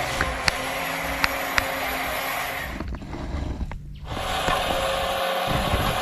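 Small electric motors and gears of radio-controlled construction models running steadily, with a few sharp clicks.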